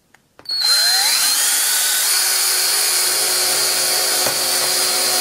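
18-volt cordless drill starting up about half a second in, its motor whine rising as it spins up and then running steadily as the bit bores into the centre of an iPhone 6.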